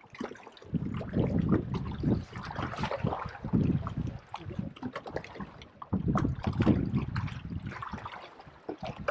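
Choppy river water lapping and splashing against the hull of a fishing kayak, with uneven low buffeting on the microphone throughout.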